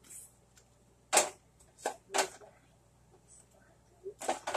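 Spice jars clacking as they are handled, picked up and set down: three sharp clacks in the first half and a few lighter clicks near the end.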